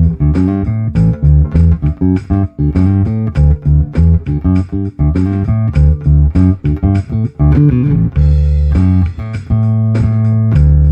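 Electric bass guitar playing a groove through a Traynor YBA300 all-tube bass amp with a clean tone, recorded as a mic'ed cabinet blended with the DI signal, over a drum loop from a looper pedal.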